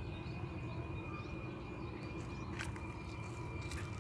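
Steady outdoor background noise: a low rumble with a thin steady whine and faint chirps over it. Two short clicks come about two and a half seconds in and again near the end.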